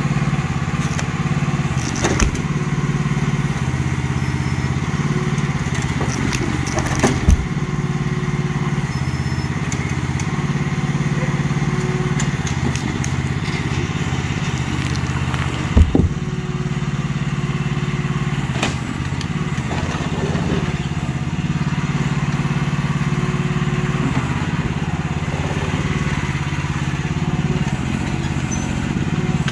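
Small engine of a Chinese mini excavator running steadily while the machine breaks up a concrete pool deck about 4 inches thick, with occasional sharp knocks and cracks as the bucket strikes and breaks the slabs, the loudest about 16 seconds in.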